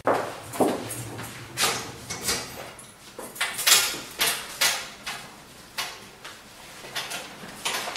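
Irregular knocks, clicks and rustles as a wall-mounted mailbox is opened and letters are taken out and handled.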